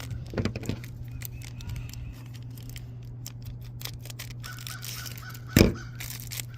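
Hands opening a small cardboard toy box and its plastic packaging: scattered clicks and rustles, a few louder handling knocks just after the start, and one loud sharp crack or tear near the end, over a steady low electrical hum.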